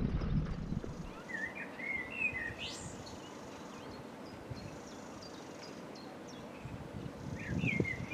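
Small songbird chirping outdoors in two short bursts of song, about two seconds in and again near the end, one with a quick rising whistle. A low rumble sits under the start and the end, over a faint steady hiss.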